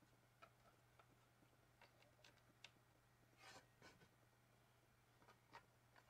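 Faint, scattered small clicks and rustles of hands handling a plastic cable cover and wiring on a 3D printer's heatbed, with a brief rustle about three and a half seconds in.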